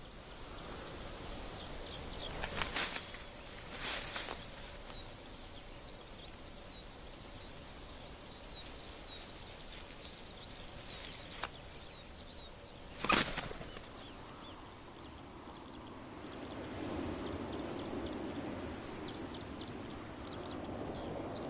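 Open-field ambience: faint songbird chirps over a steady wind hiss, with three brief whooshes, two close together about three and four seconds in and one near the middle.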